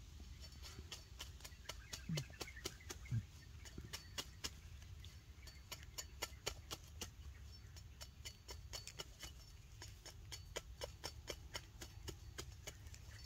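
A machete blade cutting and shaving at a wooden stick: a fast, irregular run of sharp wooden clicks and scrapes, with two low thumps about two and three seconds in.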